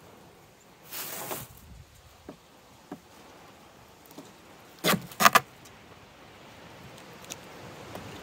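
Packing tape being peeled and ripped off a new air fryer oven: a short tearing sound about a second in, a few light clicks, then three sharp rips close together about five seconds in.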